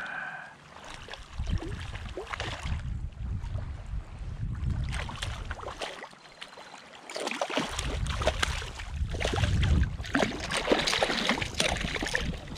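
Water splashing as a hooked striped bass thrashes at the surface close alongside, in several spells, with gusts of wind rumbling on the microphone.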